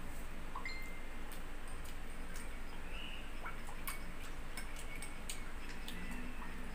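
Metal spoon clinking against the inside of a ceramic mug as a drink is stirred: a scattered run of light clicks with a few short ringing chinks, over a steady low hum.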